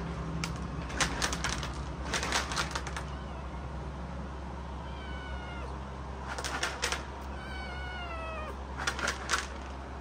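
A cat meowing twice: a short meow about halfway through, then a longer one that falls in pitch. Clusters of sharp clicks come between and around the meows, louder than the meows.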